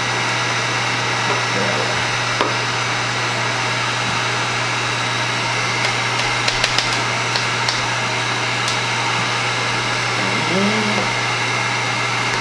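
Handheld heat gun running steadily, its fan blowing hot air with a constant low motor hum, a few light ticks about six to seven seconds in.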